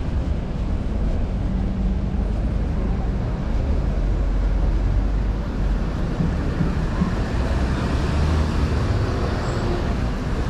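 Steady city street traffic: vehicles driving past in a continuous low rumble.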